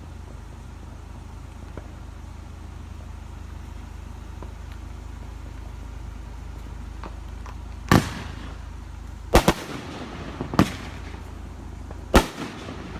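Consumer fireworks going off: five sharp bangs over about four seconds, two of them nearly together, starting about eight seconds in after a low steady hum.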